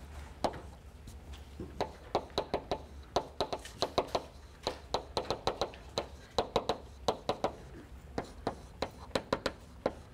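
Chalk writing on a blackboard: a quick, irregular run of sharp taps and clicks, several a second, with short pauses between words, over a steady low room hum.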